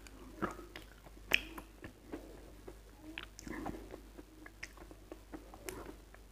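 Close-miked chewing with the mouth closed: soft, moist mouth clicks and small crunches at an uneven pace, the sharpest about a second and a half in.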